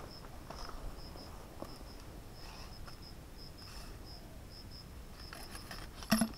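An insect chirping in a high, steady series of short pulses, with a few soft rustles in dry leaves and one sharp knock about six seconds in.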